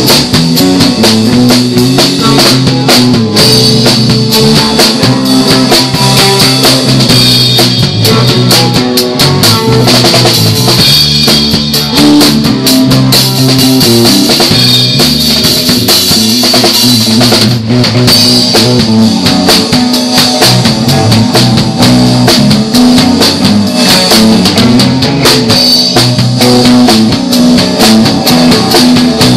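Rock band playing live at full volume: a drum kit hit hard and fast, with bass and guitar, recorded loud and close.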